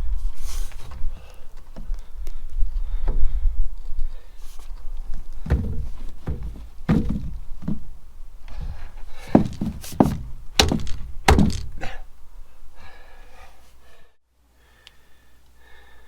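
A series of dull thunks and knocks, about half a dozen loud ones in the middle stretch, over a low rumble; the sound drops away abruptly near the end.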